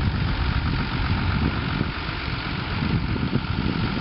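Farm tractor engine running steadily as it pulls a hay bale off a stone boat with a tow rope.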